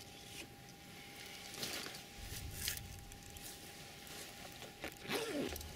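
Rustling and handling of a fabric rod bag and fishing gear in grass, in short scattered bursts with light clicks. A brief wavering sound comes about five seconds in.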